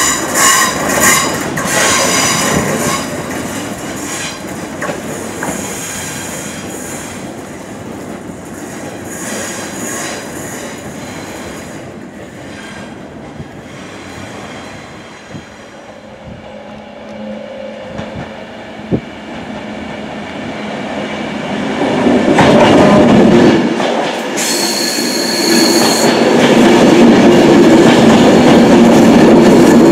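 A Class 318 electric multiple unit pulls away from the platform, its wheels squealing on the curve as the noise fades over the first ten seconds or so. After a quieter spell, a Virgin Trains Class 390 Pendolino electric train comes in with a brief high squeal and runs past close by, loud and steady for the last few seconds.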